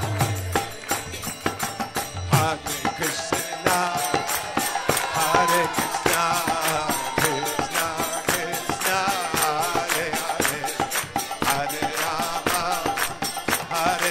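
Kirtan music: voices chanting a devotional melody over a fast, steady beat of light percussion strokes, with a deep drum stroke about two seconds in.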